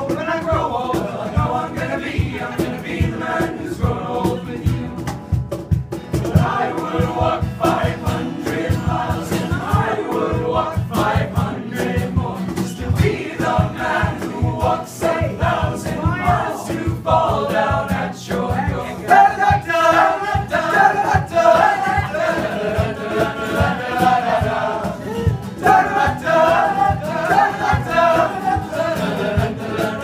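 A group of teenage boys singing together in chorus over a steady beat.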